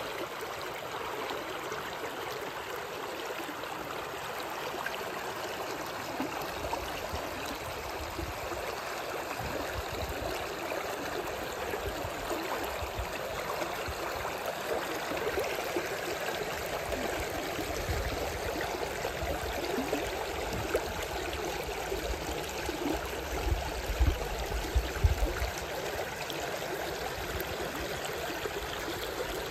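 Shallow river water rushing and splashing over a submerged wall of piled river stones: a steady wash of water noise. A few low thuds come about three-quarters of the way through.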